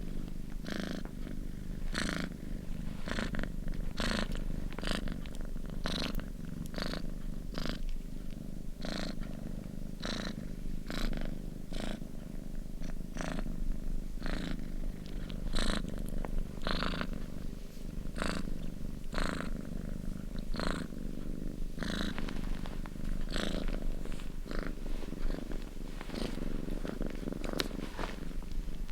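Kitten purring steadily at close range: a continuous low rumble, with a short hiss recurring about every three-quarters of a second.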